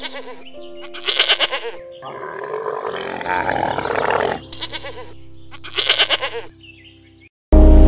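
About four bleating calls over background music. Loud electronic music cuts in abruptly near the end.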